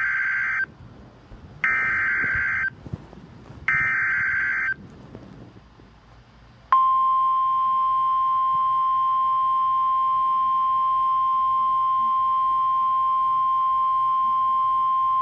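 NOAA Weather Radio Emergency Alert System activation: three roughly one-second bursts of buzzing SAME header data (the first already under way), then, about seven seconds in, the steady single-pitch weather-radio warning alarm tone that holds to the end. Together they signal that a warning, here a severe thunderstorm warning, is about to be read.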